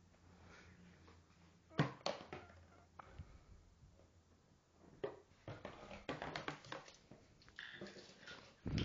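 Scattered light knocks and scrabbling against a cardboard shoebox as a ferret paws after a yoyo dangled into it. There is one louder knock near the end.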